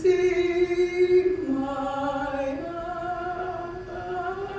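A voice singing long held notes without breaks: one note, then a step lower about a second and a half in, then back up about a second later and sustained.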